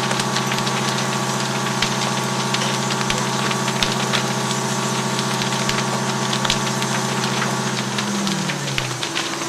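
A fire engine's motor running steadily at the fireground, dropping in pitch about eight seconds in as it throttles down. Over it come the frequent crackles and pops of the burning wooden garage.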